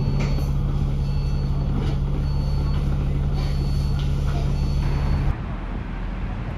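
Dennis Enviro500 MMC double-decker bus's diesel engine running with a steady hum, while a high electronic warning beep repeats about once a second, each beep about half a second long. About five seconds in, the sound cuts abruptly to quieter outdoor background noise.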